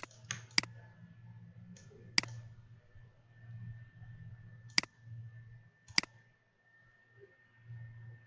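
Computer mouse clicks, about six sharp separate clicks at irregular intervals, two of them in quick succession near the start. A low steady hum runs underneath, with a faint steady high whine.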